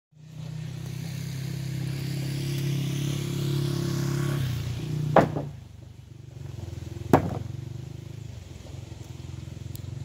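Old farm tractor's engine running steadily, dropping to a lower, quieter idle about four and a half seconds in. Two sharp knocks about two seconds apart are the loudest sounds.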